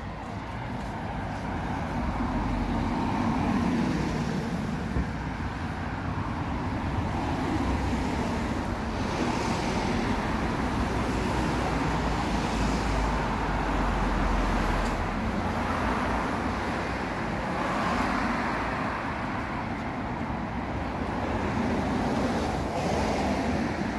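Road traffic on a village street: a steady rumble of passing vehicles, with several cars swelling up and fading away as they go by.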